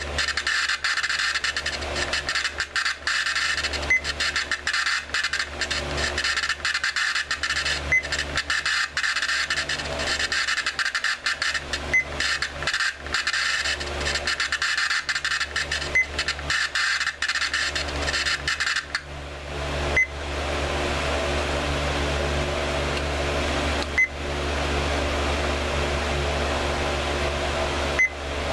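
Sound board of a Klingon power leech prop playing a looping electronic hum, crackling and choppy, with a short beep every four seconds. About two-thirds of the way through, the hum changes to a smoother, lower drone while the beeps carry on.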